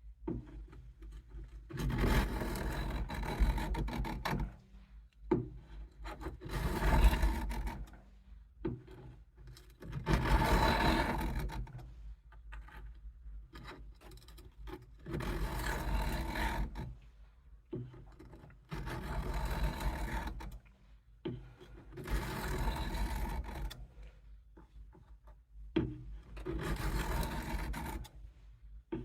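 Case USMC knife blade scraped along a 200-grit extra-coarse sharpening stone under heavy pressure, in about seven strokes of roughly two seconds each with short pauses between them. The heavy grinding is thinning out a dull edge.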